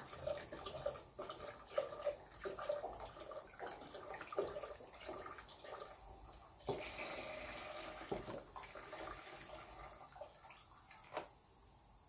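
Milk pouring from a carton into an enamel pot of boiled rice, splashing and trickling steadily, then tapering off near the end as the carton empties.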